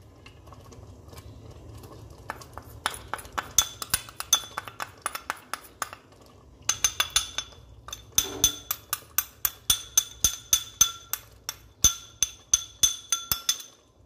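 Metal spoon repeatedly tapping and scraping against a glass bowl, about three ringing clinks a second, as turmeric is knocked out of the bowl. The clinks start about three seconds in and pause briefly near the middle.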